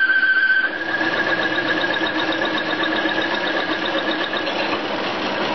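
A small metal lathe runs with a carbide slot mill plunge-cutting very hard steel, fed in by the tailstock ram pushing the carriage. It makes a steady high whine that drops a little in level and steps slightly higher in pitch about a second in. The spindle is spinning a bit fast for the cut.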